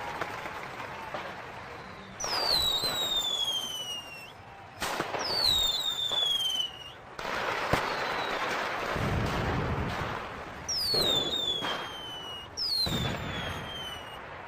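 Fireworks: four whistling rockets, each a falling whistle lasting a second or two, amid the noise of bursts, with one sharp bang about halfway through.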